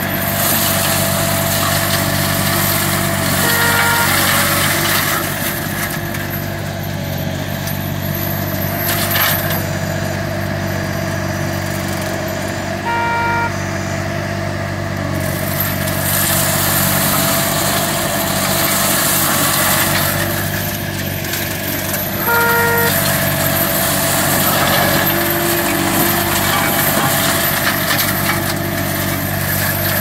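Green Climber LV600 remote-controlled tracked mower's Kohler engine running steadily under load while its MDB forestry mulcher head shreds heavy brush, a dense shredding noise over the engine's drone. The shredding noise eases for a few seconds midway, and a short beep sounds three times.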